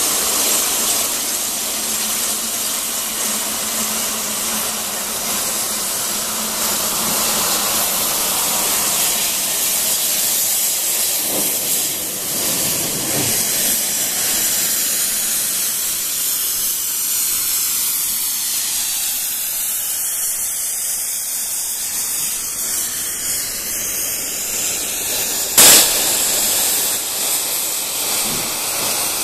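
BR Standard Class 9F 2-10-0 steam locomotive blowing steam from its open cylinder drain cocks: a steady loud hiss. About 25 seconds in, a sudden loud burst of steam cuts in and the hiss carries on slightly louder.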